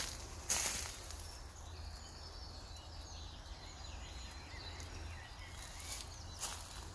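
Outdoor woodland ambience: faint distant birdsong in the middle, over a steady low rumble, with a short rustle about half a second in and another near the end.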